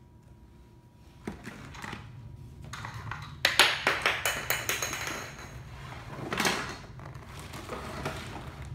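Cardboard toy box and its plastic packaging being handled by a child: quiet for about a second, then scattered knocks, then a dense run of scraping, sliding and knocking a few seconds in, with another burst later.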